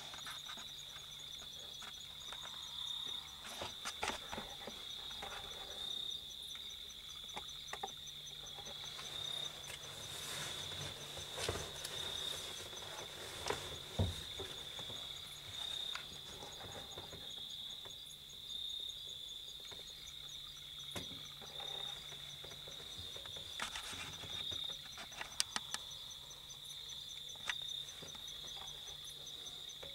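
Evening insect chorus: a steady high-pitched trill with a faster, evenly pulsing chirp above it, typical of crickets or katydids. A few light clicks and knocks break through, the sharpest about halfway through.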